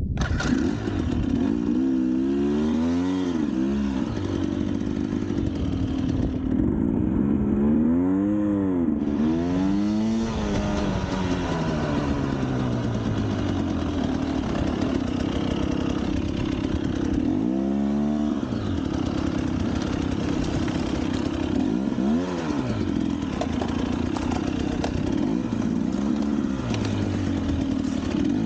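Motorcycle engine running steadily, with the throttle opened and closed several times so the revs rise and fall every few seconds.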